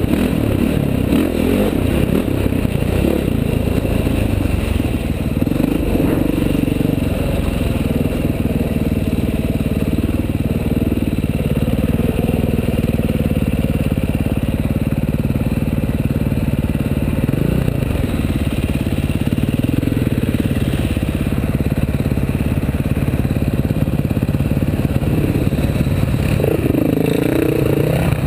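Dirt bike engine running hard along a trail, heard from on the bike, its pitch rising and falling with the throttle, with chassis clatter throughout. Near the end a second dirt bike close by revs up and down.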